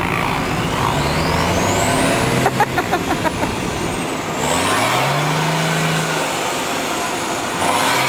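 Off-road 4x4 engine revving under load as the vehicle tries to drive out of deep mud, its pitch climbing and holding about halfway through and again near the end. A quick run of knocks comes about two and a half seconds in, with a thin rising whine above the engine.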